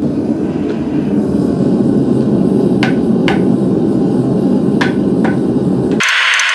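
Forge burner running with a steady low roar while a soft mallet strikes a red-hot twisted steel bar on a wooden block four times, in two pairs. Near the end the sound cuts abruptly to a steady hiss with fast ticking.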